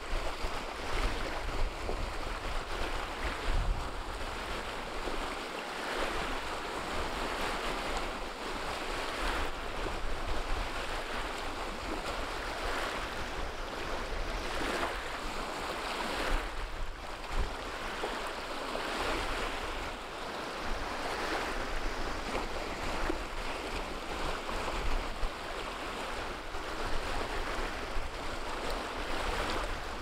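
Choppy, wind-driven waves breaking and washing in over a pebble shore, one surge after another every second or two, with gusts of wind rumbling on the microphone.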